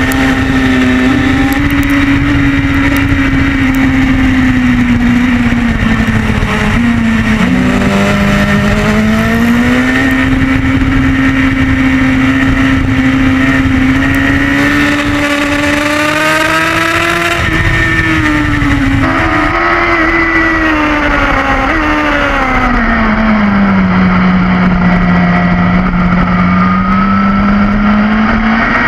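Stock BMW S1000RR's inline-four engine on a track lap, heard from an onboard camera over wind rush. The engine pitch keeps climbing and falling with the revs, dips sharply about a quarter of the way in, and sinks low for a few seconds near the end before rising again.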